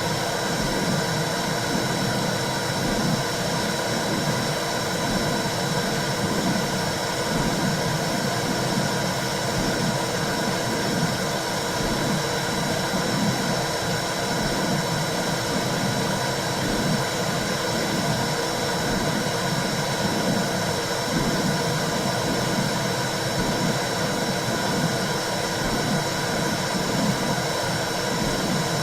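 Womb-sound track for soothing a baby: a steady, low whooshing rush of noise like blood flow heard inside the uterus, with a faint uneven pulsing in the low rush and a thin hiss above it.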